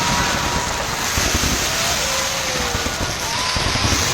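Fireworks display going off: a dense, continuous crackling din with a few faint whistling tones that glide in pitch.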